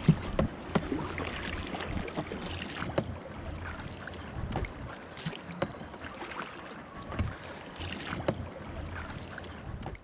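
Oars rowing a small dinghy: irregular knocks of the oars in their oarlocks and splashes of the blades, with wind rumbling on the microphone.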